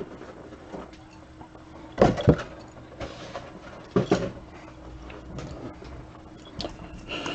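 Handling noises from trading cards and their packaging on a table: two knocks about two and four seconds in, with a few lighter taps and rustles between them over a faint steady hum.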